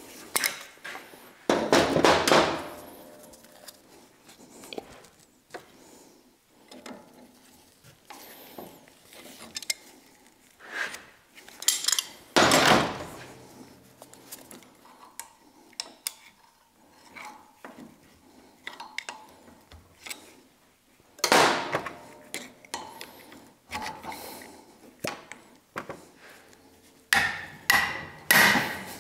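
Steel tools clinking and scraping against the base of a 50-ton hydraulic bottle jack as it is worked apart. Loud metal clanks come about two seconds in, near the middle and about two-thirds through, with a quick run of them near the end.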